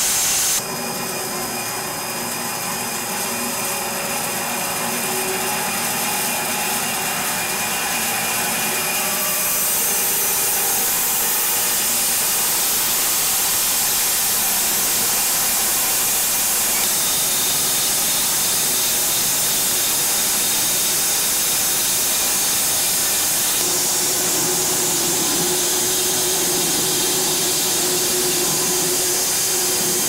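Homemade wide-cut bandsaw mill running, its band blade sawing lengthwise through a red oak crotch log, with the mill's motor drone under a steady, loud cutting noise.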